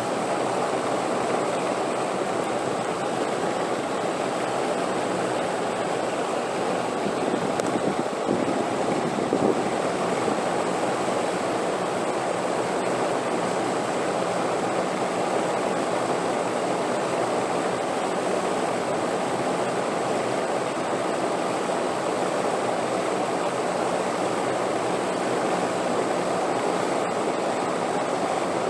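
Wind blowing: a steady, even rushing noise, swelling slightly about eight seconds in.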